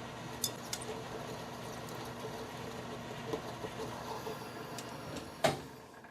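Metal lathe running steadily with a gear hum and scattered light ticks. A sharp click comes about five and a half seconds in, and the machine is then switched off and falls quiet.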